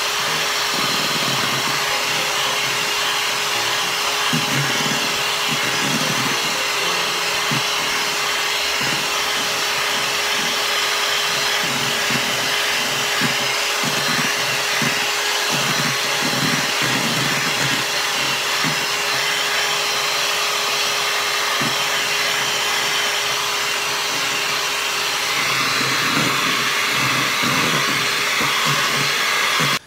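Electric hand mixer running steadily at speed, its beaters whipping egg whites with sugar and cream of tartar toward stiff peaks in a stainless steel bowl. It is a steady motor hum over a whirring noise, and it cuts off abruptly at the very end.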